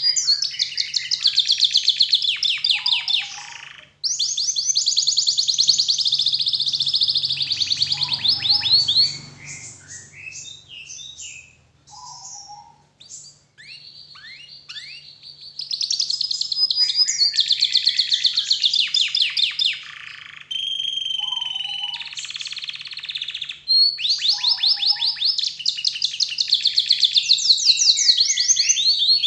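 Domestic canary singing: long phrases of very fast, high trilled notes, broken up around the middle by a stretch of scattered short notes and a steadier whistled passage.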